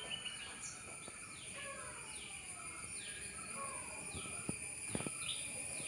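Small birds calling: short, high, falling chirps repeated about once a second, over a steady high-pitched drone.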